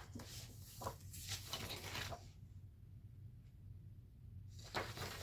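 Faint rustling and handling of paper pages in a disc-bound planner, over a steady low hum. About two seconds in the rustling stops and it goes near-silent for a couple of seconds, then the soft rustling returns near the end.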